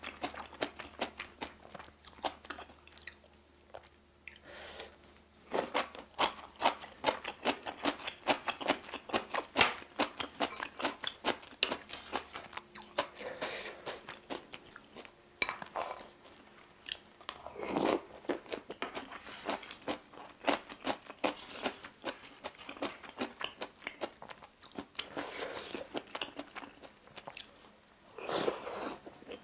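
Close-miked mouth sounds of someone eating spicy stir-fried octopus with thick glass noodles and rice: rapid, wet clicking and crunching of biting and chewing, with two longer, louder sounds, one a little past the middle and one near the end.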